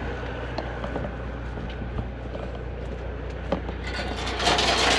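Tie-down chain and load binder clinking: scattered metallic clicks over the steady low hum of an idling truck engine, with a louder, noisier rattle starting near the end.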